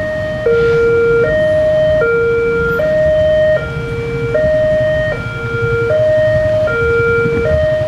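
Railway level-crossing alarm sounding its two-tone warning, switching back and forth between a lower and a higher tone about every three quarters of a second, the signal that the barriers are down for an approaching train. A low rumble of idling motorcycle engines runs underneath.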